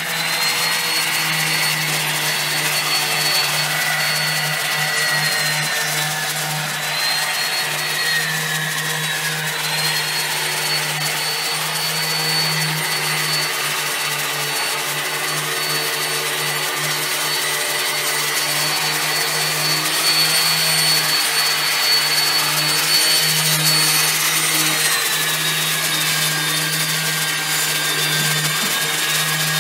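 A motor-driven machine running steadily, with a constant low hum and a high whine that drops and rises in pitch a few times.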